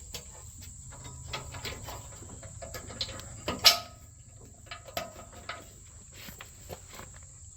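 Crickets chirring in a steady high trill, with scattered sharp knocks and clanks on top, the loudest about three and a half seconds in.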